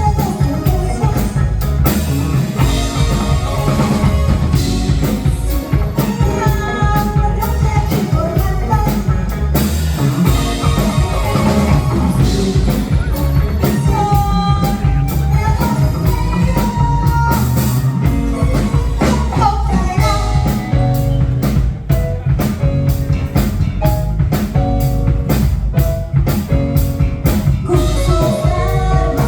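Live rock-funk fusion band of drums, bass, electric guitar and keyboards playing loud and steady, with a lead melody line moving over a driving beat.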